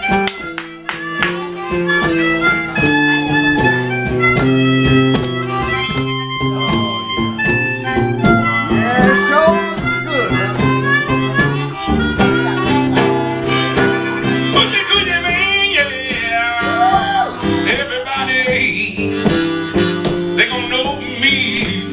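Blues harmonica solo, with held notes and notes bent up and down, over acoustic guitar accompaniment.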